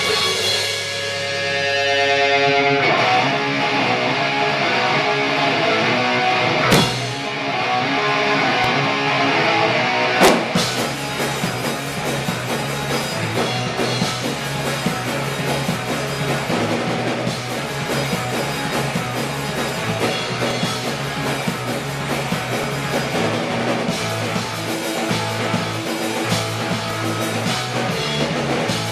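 Loud rock music with electric guitar and drum kit, with two sharp cracks breaking through, one about seven seconds in and a louder one about ten seconds in.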